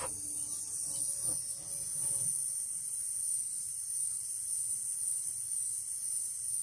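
Hot-air rework tool blowing steadily, a continuous high-pitched hiss, as it reflows the solder under a newly placed LED.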